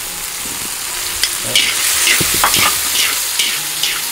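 Chopped food stir-frying in a large black wok: a steady sizzle of hot oil, with long chopsticks stirring and scraping through it in a series of quick strokes.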